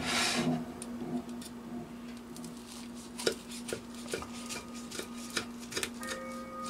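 Knife and fork cutting through a toasted quesadilla on a ceramic plate: scattered sharp clicks and scrapes of metal on the plate, with a short rustling burst right at the start.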